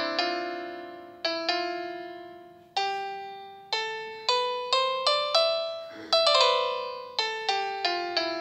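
Background music: slow solo piano melody, single notes struck one after another and left to ring out.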